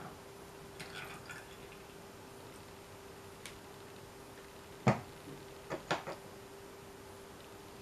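Last drips of coffee extract falling from a tipped stainless steel saucepan into a small metal funnel, a few soft ticks about a second in. Just before five seconds, one sharp metallic knock followed by a few lighter clicks as the metal funnel is handled on the neck of the plastic bottle.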